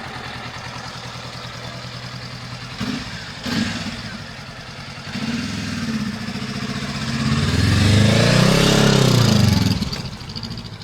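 Honda CL500 parallel-twin motorcycle engine idling, with a couple of short throttle blips about three seconds in. It then pulls away, getting louder as the pitch rises and falls, loudest near eight seconds, and drops off quickly before the end.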